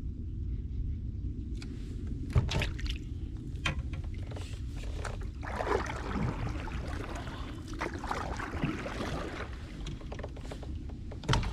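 Knocks and handling noises on a fishing kayak, with a wash of water noise for a few seconds in the middle, over a steady low rumble.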